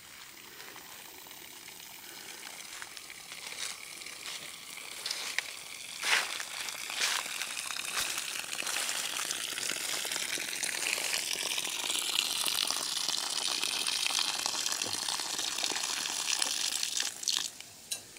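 A strong stream of water from a valve on a black hose pouring into a blue drum, a steady splashing gush that grows louder over the first several seconds; the hose is delivering water with good pressure. The gush cuts off suddenly near the end, with a few clicks as the valve is handled.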